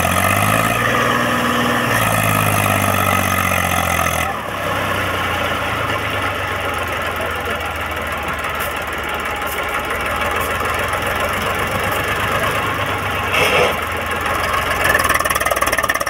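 Eicher 480 tractor's diesel engine running at raised revs for about four seconds as it tries to move with a loaded trolley bogged in soft sand, then dropping suddenly to a steady idle. A brief noise comes near the end.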